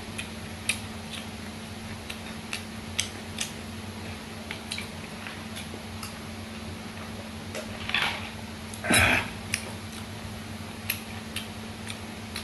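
Mouth sounds of someone eating boiled baby squid and rice with the fingers: scattered short wet smacks and clicks of chewing over a steady low hum. Two louder noisy sounds come about eight and nine seconds in, around a drink from a plastic water jug.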